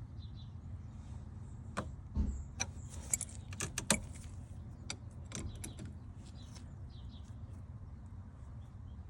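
Light metallic clicks and jingling as a wrench works a replacement metal turn signal lever tight into a car's steering column, clustered in a burst from about two to six seconds in, over a steady low hum.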